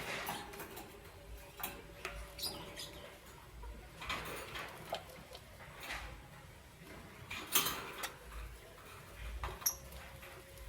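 Lovebirds chirping: short, sharp high chirps and squeaks at irregular intervals, the loudest about seven and a half seconds in, mixed with small clicks and taps.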